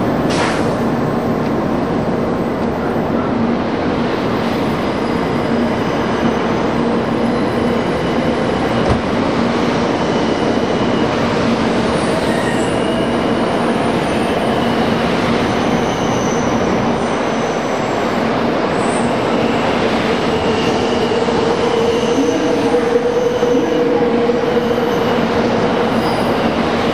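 N700 series Shinkansen train running past: a loud, steady rumble of the train with a steady electric hum through it, growing a little louder near the end.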